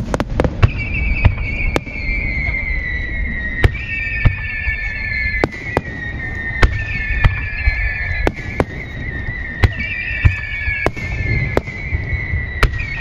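Japanese fireworks display: aerial shells launching and bursting in quick succession, sharp bangs about once or twice a second over a low rumble. A high whistle slides slowly down in pitch and starts again every few seconds.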